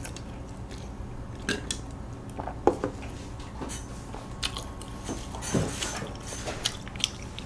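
Close-miked mouth sounds of chewing, with scattered small clicks and crinkles.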